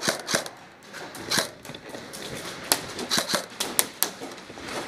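Airsoft gunfire: scattered sharp clicks and snaps of shots and BBs, two near the start, one about a second and a half in, and a quick cluster from about three to four seconds.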